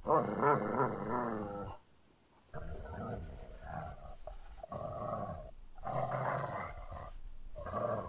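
Dog growling: a loud, wavering growl for nearly two seconds, a short break, then a longer stretch of growls coming in spells with brief pauses between them.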